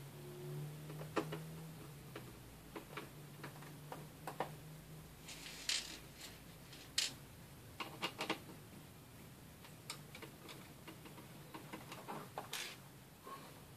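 Scattered small clicks and taps of a screwdriver working the screws out of a laptop's plastic bottom covers, and tiny screws being set down on a table, with short scrapes about six seconds in and again near the end.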